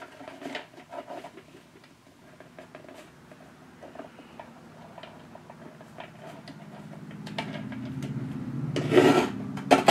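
Paper being slid and pressed flat on a paper trimmer, with small taps and clicks. Near the end come two loud, short rasps as the trimmer is worked, over a low hum that grows louder in the last few seconds.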